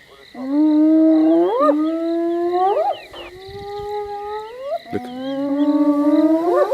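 Spotted hyena whooping: four long calls in a row, each held low and then swooping sharply up in pitch at the end.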